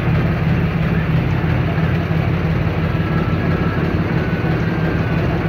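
Motor boat engine running steadily underway, a loud, even low drone heard from inside the boat's wheelhouse.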